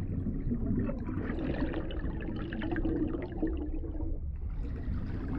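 Underwater recording: steady water noise with a low rumble, a wavering hum and scattered faint clicks.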